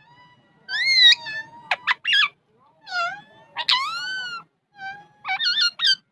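Alexandrine parrot giving a run of loud, shrill calls that swoop up and down in pitch, with a pair of sharp chirps in the middle and a quick warbling call near the end.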